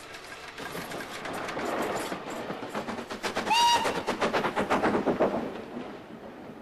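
Steam locomotive working past at speed, its rapid exhaust beats building up to their loudest and then fading as it goes by. A brief high note sounds about halfway through.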